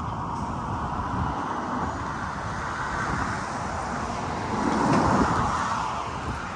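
Road traffic rushing by, with one vehicle passing and loudest about five seconds in.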